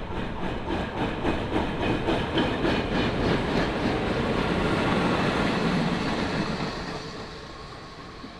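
Two T class diesel-electric locomotives passing close at speed, followed by towed metro carriages whose wheels click rapidly over the rail joints. The sound swells through the middle and fades away near the end as the train moves off.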